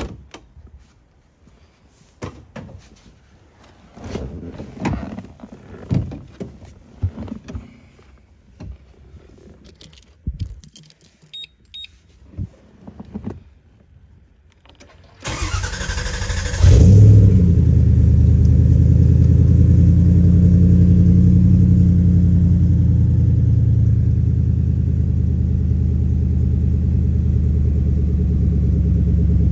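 Rustling and scattered clicks, then about 15 s in the starter cranks for a second or so and the Factory Five Cobra replica's V8 catches with a flare of revs. It settles into a loud, steady cold-start idle after sitting four or five days, easing slightly later on.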